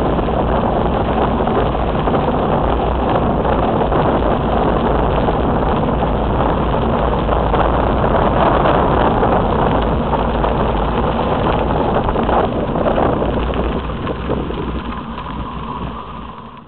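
Steady wind rushing over a cyclist's camera microphone while riding a bicycle. It fades away over the last few seconds.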